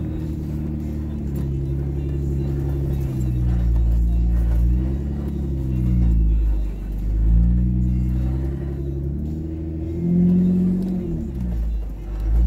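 A vehicle's engine, heard from inside the cab, rising and falling in pitch several times as the throttle is worked over a rough dirt track, with a deep rumble underneath.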